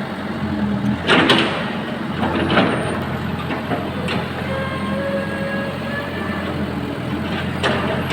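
Cat 313B CR excavator's diesel engine running steadily under work, with a faint hydraulic whine in the middle and a few short metallic knocks and scrapes: about a second in, around two and a half seconds in, and near the end.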